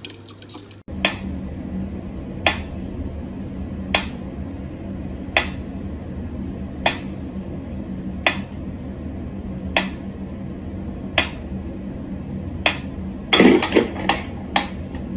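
Mechanical pendulum metronome ticking slowly and evenly, about once every one and a half seconds, over a steady low hum. Near the end, a short burst of louder knocks and clatter.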